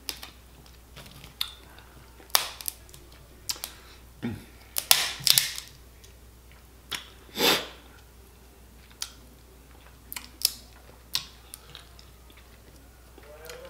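Snow crab legs cracked and pulled apart by hand: scattered sharp cracks and clicks of shell, with a few wet eating sounds between.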